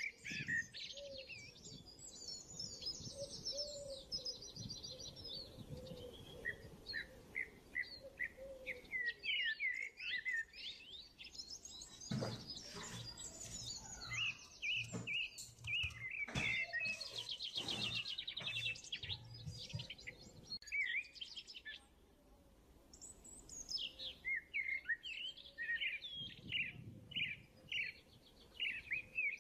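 Small birds chirping and trilling almost without pause, with a few short knocks around the middle.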